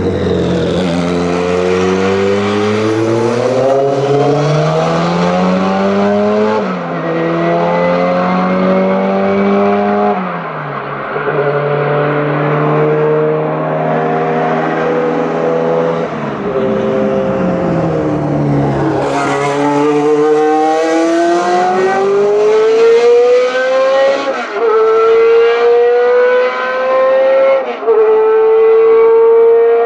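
Racing car engines accelerating hard through the gears. The pitch climbs and drops back at each of several upshifts, and a second, closer car comes through about two-thirds in.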